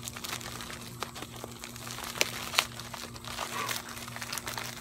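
A plastic mailing envelope being crinkled and torn open by hand: a run of small crackles, with two sharper snaps a little past the middle.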